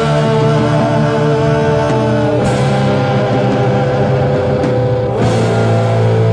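Rock band jamming on electric guitar with bass and drums, holding chords that change about two and a half seconds in and again about five seconds in.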